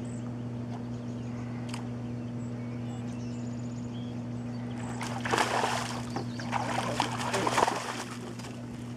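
Smallmouth bass splashing and thrashing at the surface beside the boat as it is brought to the landing net, in irregular bursts from about five seconds in to about eight seconds, over a steady low hum.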